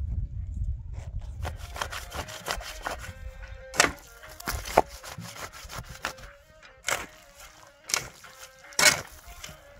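Metal shovel digging and scraping into a heap of earth mixed with straw: a run of small scrapes, then about five sharp strikes roughly a second apart.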